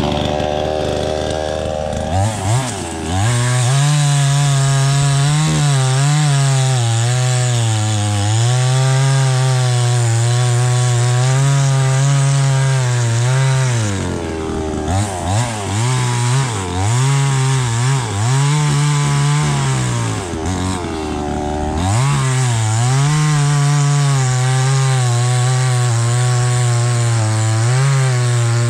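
Small two-stroke chainsaw engine, just started, idling for about two seconds, then throttled up and cutting into a log. Its note sags and recovers again and again under the load, dropping back twice toward idle partway through.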